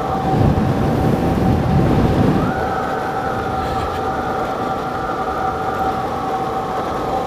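Suzuki V-Strom 650's V-twin engine running as the motorcycle climbs a concrete ramp road, with a steady whine whose higher note rises about two and a half seconds in. A heavy low rumble fills the first two and a half seconds.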